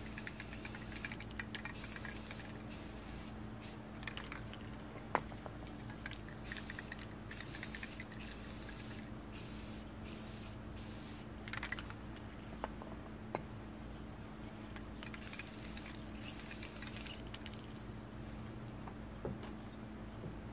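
Insects give a steady high drone throughout, while an aerosol spray-paint can is sprayed in several short hisses that start and stop. There are a few small sharp clicks.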